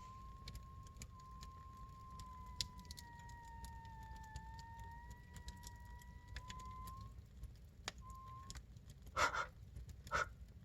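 A burning log in a fire whistling: a steady, thin high whistle that wavers slightly in pitch, likened to air let out of a balloon or a squeaky fart. It is typical of moisture in the wood escaping as steam. The whistle stops after about seven seconds and returns briefly, over faint crackles, with two short bursts of noise near the end.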